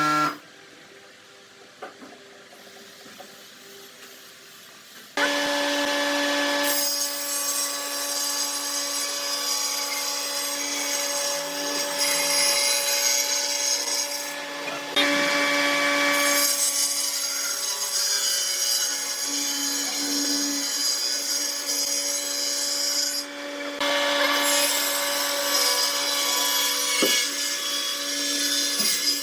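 Electric power tool cutting wood: quiet for the first few seconds, then the motor starts running with a steady hum under the cutting noise, dipping briefly about halfway and again about three-quarters of the way through.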